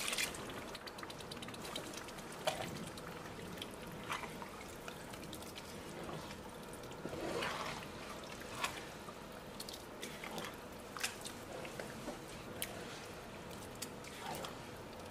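Meat stock poured into a large metal pot of wet rice in tomato sauce, and a wooden spatula stirring it: soft liquid sloshing and scraping with a few faint knocks.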